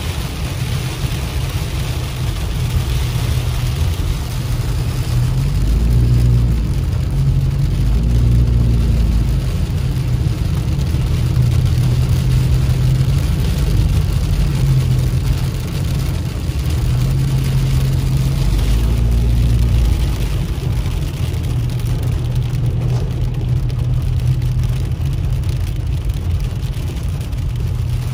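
Inside a car driving through a heavy rain and hail storm: a steady low rumble of the engine and tyres on the wet road, with rain and hail pelting the roof and windshield.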